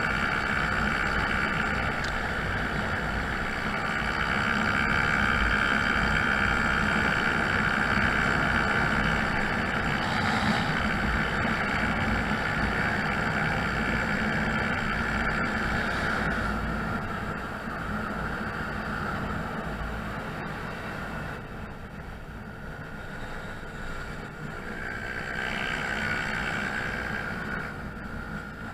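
Honda Zoomer (NPS50) scooter's 50cc four-stroke single running steadily while being ridden along the road. The engine sound drops noticeably about two-thirds of the way through as the scooter slows, with a brief rise again near the end.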